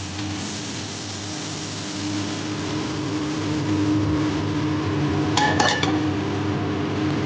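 A frying pan tipped against a stainless steel bowl as cooked shrimp are slid out, with a quick cluster of metal clinks about five and a half seconds in, over a steady hum.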